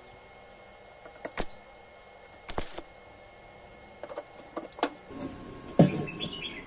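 Stick-welding electrode striking brief tack welds on square steel tubing: two short bursts, about one and a half and two and a half seconds in. Then clicks and metal handling as a length of square tube is picked up, with a sharp knock near the end, the loudest sound.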